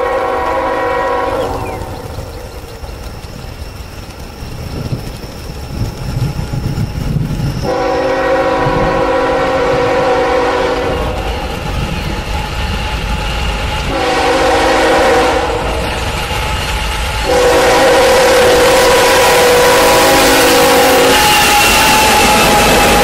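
Union Pacific diesel freight locomotive's multi-note air horn sounding several long blasts for a grade crossing as the train approaches, growing louder. Near the end the lead locomotive passes close by: the horn's pitch drops as it goes past, over the rumble of the engine and wheels on the rails.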